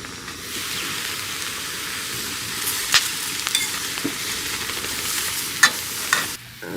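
Food sizzling over a camp stove, a steady hiss with a few sharp clicks of a utensil against the pan. The sizzle stops abruptly near the end.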